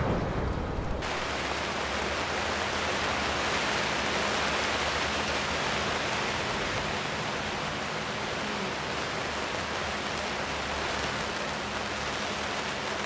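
Steady rain falling on the river and grass. It starts abruptly about a second in as an even hiss.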